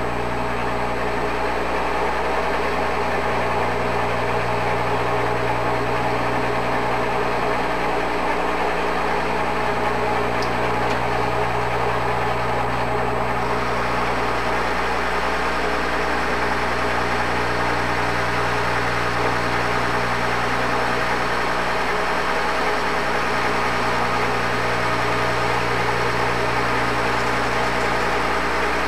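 Engine lathe running steadily while a boring bar cuts inside the bore of the spinning workpiece: a constant machine hum with several steady tones, the low hum dipping briefly about every seven seconds.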